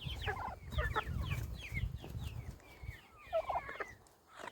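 A small flock of young turkeys and chickens calling as they feed: a steady run of short, high, falling peeps, with a lower call about three and a half seconds in.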